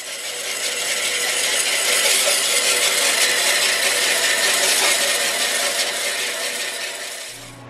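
Horizontal metal-cutting bandsaw blade cutting through 3-inch Schedule 40 steel pipe: a steady high hiss of the teeth on steel, with a few steady tones beneath it. It swells through the middle and eases off near the end.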